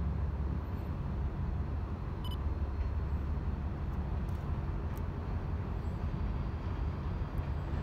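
Low, steady rumble of the Canadian Pacific Holiday Train's diesel locomotive, still some distance off as it approaches.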